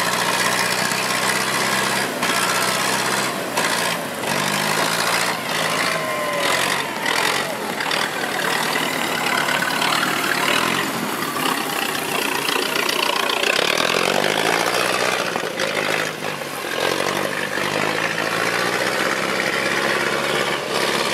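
Engine of an early vintage chain-drive car running at low speed as it pulls up a muddy slope, its pitch rising and falling as the revs vary.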